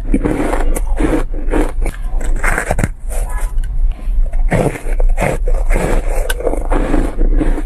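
Close-miked crunching of a block of coloured shaved ice being bitten and chewed, an irregular run of crisp crunches several times a second.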